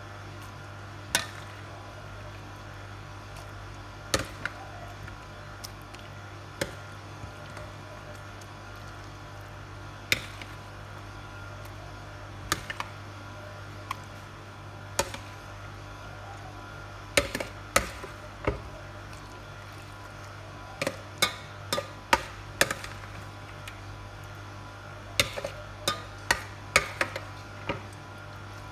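Plastic serving spoon knocking and scraping against a stainless steel bowl and a clear bowl while scooping macaroni salad: irregular sharp clacks, sparse at first, then in quick runs in the second half, over a steady low hum.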